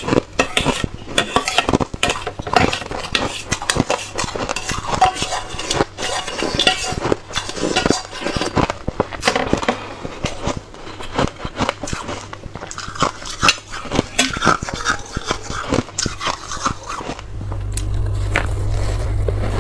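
Close-miked crunching and chewing of crumbly frozen ice, with a metal spoon clinking and scraping against a metal bowl in many sharp clicks. Near the end a steady low hum comes in under softer scraping and chewing.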